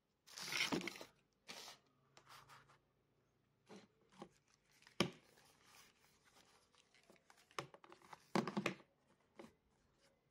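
Hands handling faux-leather headphone ear pads: irregular rustling and scuffing bursts, with a sharp click about five seconds in.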